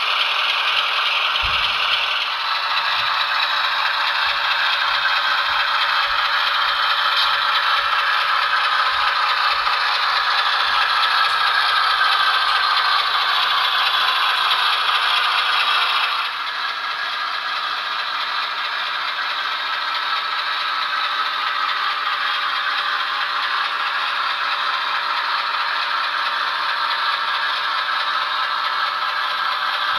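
HO scale model train, an Athearn Genesis ES44AC locomotive pulling freight cars, rolling along the track with a steady rattle and clatter of small metal wheels on rail. It drops a little in level about halfway through.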